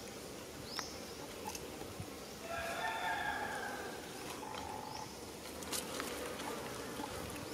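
A single drawn-out animal call lasting about a second and a half, with a shorter call a couple of seconds later and a few brief high chirps around them.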